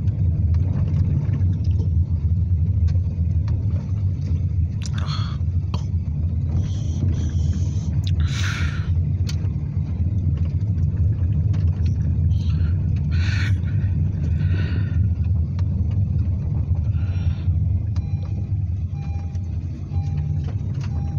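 Road noise inside a moving car: a steady low rumble of tyres and engine, with a few brief louder rushes. Faint short beeps repeat about once a second near the end.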